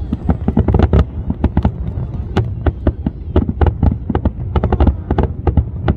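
Fireworks display: aerial shells bursting in a rapid barrage, several sharp bangs and crackles a second, over a low rumble.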